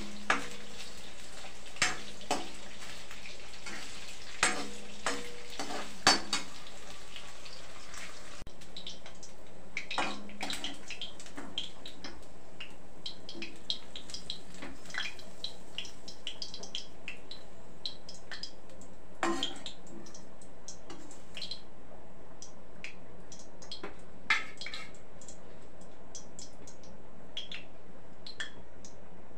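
Paneer cubes frying in oil in a metal wok, a steady sizzle, with a metal spatula clinking and scraping against the pan as they are turned and lifted out.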